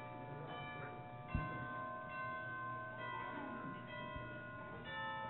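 Bell-like chimes ringing a slow sequence of sustained notes, a new note or chord about every second. A soft thump about a second and a half in.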